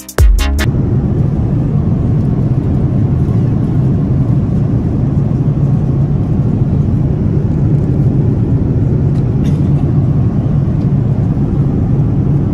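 Steady low rumble of a jet airliner in flight, engine and airflow noise heard inside the passenger cabin.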